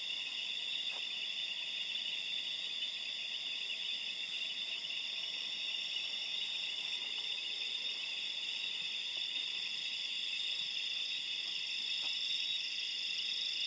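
Night chorus of crickets and bell frogs from a swamp: a dense, steady, high-pitched trilling, deafening in its loudness.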